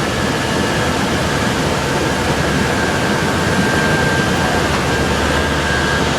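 Electric arc welding: the arc sizzling steadily and loudly.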